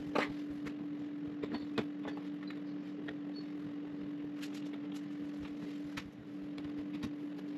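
Scattered small clicks and taps of hand work on a wall-mounted electrical flush box as it is turned 90 degrees. A steady low hum runs underneath.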